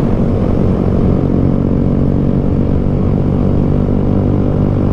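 Honda Grom's single-cylinder four-stroke engine running steadily at cruising speed, heard from the moving motorcycle.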